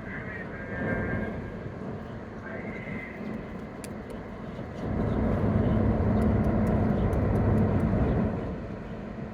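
Steady low running noise on board a ferry leaving harbour. It swells into a louder low rumble for about three and a half seconds midway, then settles back. Faint high calls sound in the first few seconds.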